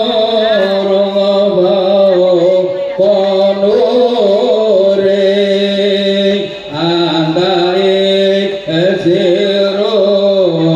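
Music: a voice singing a slow melody that bends and slides in pitch over a steady held low drone, loud throughout.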